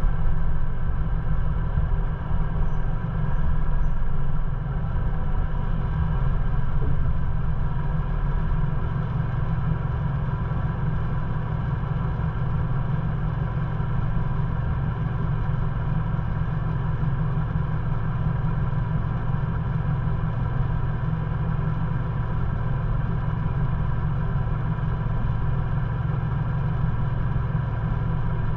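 Ford Bronco's engine running at low speed, a steady low rumble as the SUV idles and creeps forward, a little louder and more uneven over the first few seconds.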